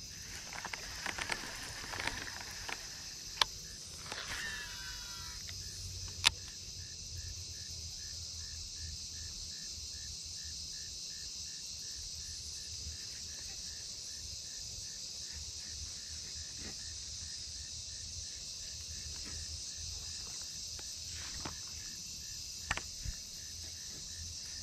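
Dusk insect chorus: a steady high shrill of insects with a cricket chirping about twice a second. A couple of sharp clicks stand out a few seconds in.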